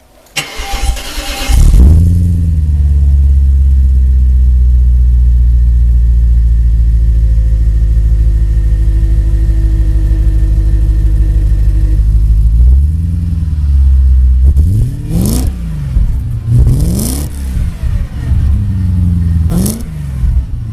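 BMW E34 540i's 4.0-litre V8 starting with a flare of revs, then idling steadily through an exhaust whose catalytic converters have been replaced by welded-in flame arrestors and whose stock rear muffler has been modified. Near the end the throttle is blipped about four times, each rev rising and falling quickly.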